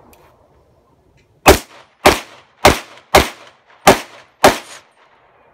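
Six pistol shots from an Open-division competition pistol, fired in a steady string with a little over half a second between them.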